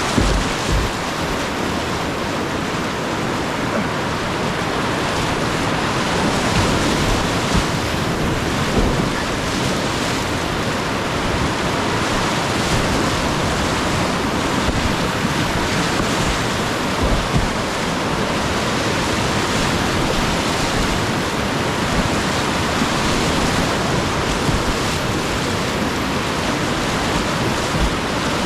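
Whitewater river rushing steadily in a loud, even roar, with occasional low bumps on the microphone.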